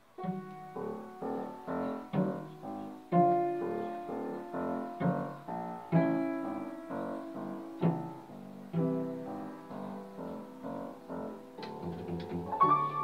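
Piano and cello playing a passage of contemporary chamber music: a steady succession of struck piano chords, two or three a second, with the cello beneath. A held higher note comes in near the end.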